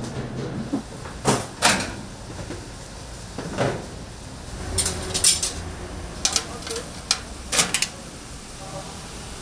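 Kitchenware clattering as it is handled: irregular sharp knocks and clacks, some in quick pairs, over a low steady hum.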